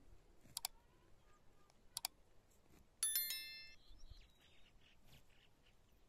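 A single bright metallic ding about halfway through that rings briefly and fades, after two short sharp clicks.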